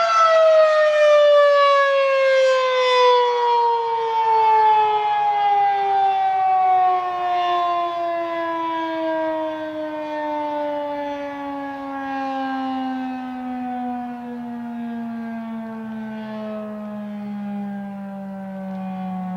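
Federal Signal 2001-SRN outdoor warning siren winding down at the end of an Attack signal test. After a held high tone, its pitch falls smoothly and steadily all the way down to a low tone, with slow swells in loudness.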